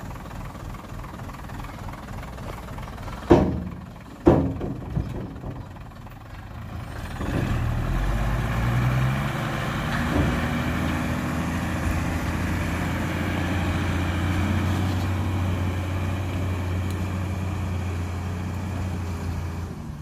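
Two loud knocks about a second apart. Then a dump truck's diesel engine rises in pitch and level and settles into a steady low-pitched running note.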